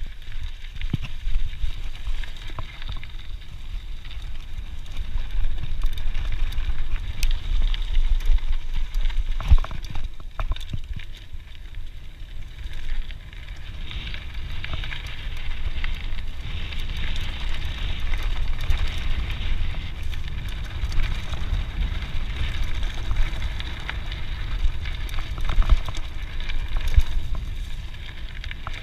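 Scott Genius full-suspension mountain bike rolling along dirt singletrack: tyres crackling and rumbling over the dirt, with scattered clicks and rattles from the bike and low wind rumble on the camera's microphone.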